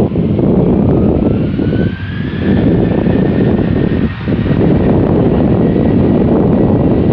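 Jet airliner engines whining as the aircraft taxi, under heavy wind rumble on the microphone. About a second in, the engine whine rises in pitch, then holds steady.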